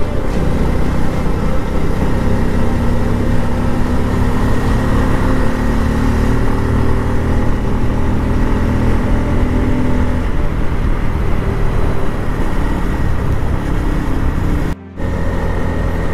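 Motorcycle engine running at a steady cruising speed with road and wind noise, heard from the rider's camera while riding. The sound cuts out for a moment near the end.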